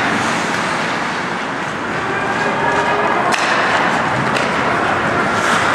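Ice hockey rink ambience: spectators' voices and calls echoing in the arena, with skates scraping on the ice and a couple of sharp knocks about three and four and a half seconds in.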